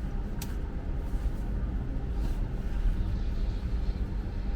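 Steady low background rumble, with a light click about half a second in and a fainter one a little after two seconds.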